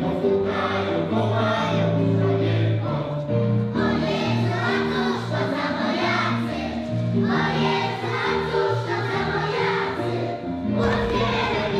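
A group of young children singing a song together with instrumental accompaniment and a steady bass line.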